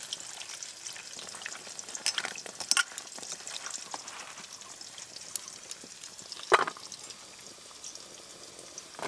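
Steady sizzle of diced potatoes frying in hot oil, with water pouring and splashing as halved pointed gourds are washed by hand in a steel plate. A few sharp knocks, the loudest about six and a half seconds in.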